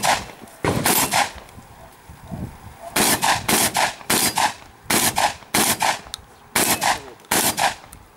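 Shotgun fired rapidly in a practical shooting stage: about a dozen sharp shots, mostly in quick pairs a third of a second apart, with a pause of almost two seconds after the first three.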